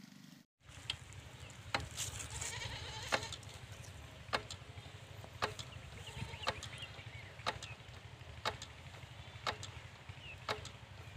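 Kirloskar diesel pumpset engine running with a steady low drone. Sharp ticks come about once a second.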